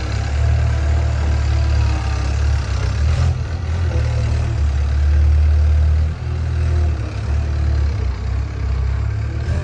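Skid steer loader's engine running steadily, with a brief dip in level about six seconds in.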